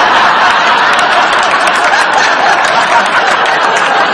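Sitcom studio audience applauding and laughing, a loud, steady wash of clapping.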